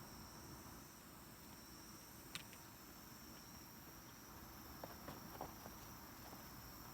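Faint, steady chirring of crickets, with one sharp click a little over two seconds in and a few soft ticks around five seconds.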